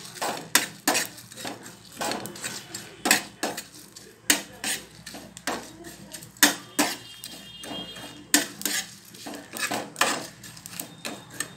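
Flat spatula scraping and clinking against a dry metal pan as whole spices (cumin, fennel, black peppercorns and torn dried red chillies) are stirred and dry-roasted, with irregular strokes about two a second.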